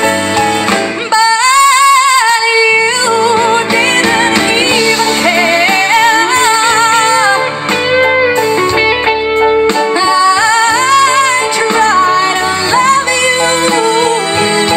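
A song: a woman singing long notes with a wide vibrato over guitar and bass.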